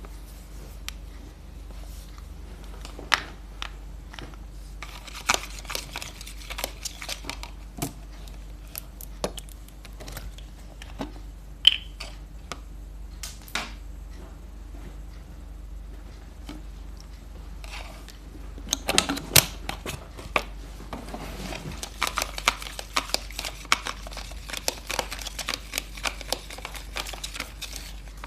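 Handling noises: scattered sharp taps and clicks, with busier stretches of rapid clattering and scraping about five seconds in and again from about nineteen seconds on.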